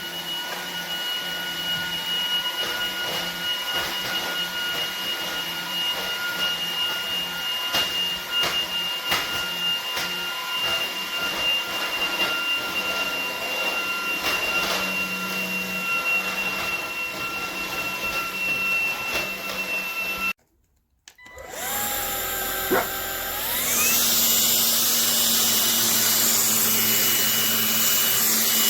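MONSGA MV3 cordless stick vacuum running with a steady high whine. About two-thirds of the way through it cuts out for a moment, then the motor spins up again with a rising whine and runs on louder.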